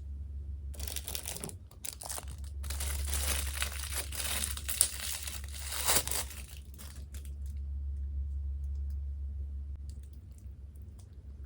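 Crisp crinkling and tearing of a fried chicken meal being handled, from about a second in until about seven seconds, with sharp crackles near five and six seconds. A steady low electrical hum runs underneath.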